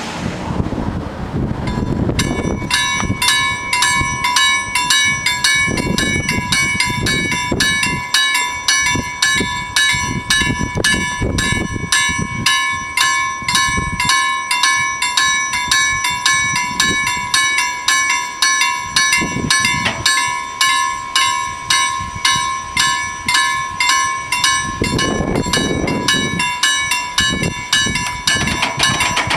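Level-crossing warning bells ringing in rapid, even strokes, starting about two seconds in: the crossing's alarm that a train is approaching and the barriers are coming down.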